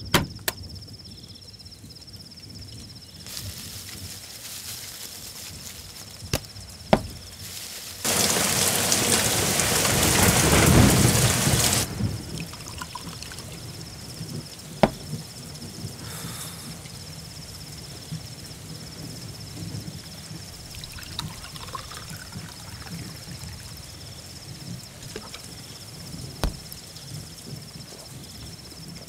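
Steady rain at night with a loud burst of thunder about eight seconds in that lasts some four seconds. A few sharp knocks and a thin steady high whine sound through it.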